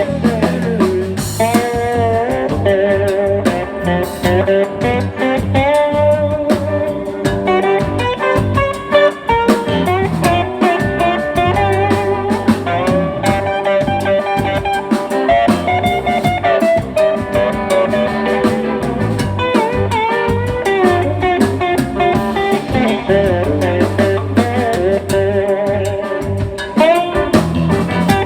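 Live blues-rock band playing an instrumental stretch: a guitar lead with bending notes over bass and drums.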